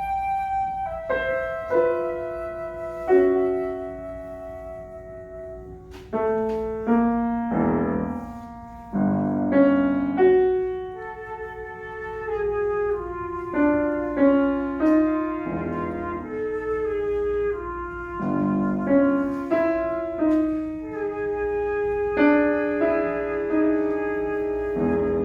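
Flute and piano duo playing a classical chamber piece: sustained flute melody lines over struck piano chords that ring and decay, quieter for a moment about five seconds in before the piano re-enters with a strong chord.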